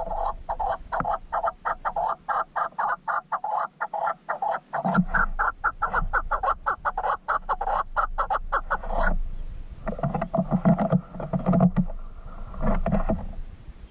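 An animal calling in a fast, even run of short notes, about eight to ten a second, that stops abruptly about nine seconds in. A few slower, lower-pitched bursts follow near the end.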